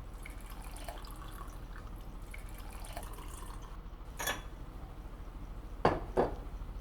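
A drink of liquor poured into shot glasses, a faint trickle, with a ringing glass clink about four seconds in and two sharp knocks of glasses set down near the end.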